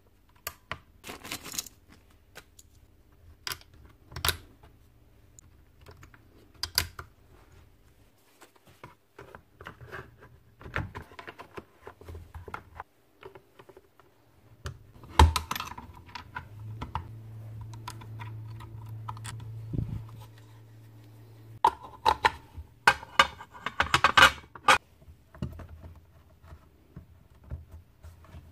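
Plastic and metal parts of a Festool plunge saw being handled and fitted back together by hand: scattered clicks, taps and knocks, with a busier run of clicks and snaps late on. A low steady hum sounds under the handling from about halfway through for several seconds.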